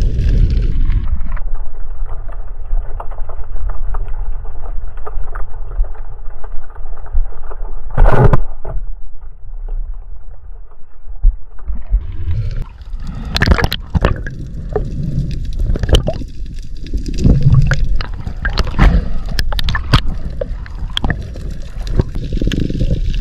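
Water noise picked up by a diving camera in the sea. It is dull and muffled underwater, with one loud thump about eight seconds in. From about twelve seconds in it turns to splashing water with many clicks and knocks.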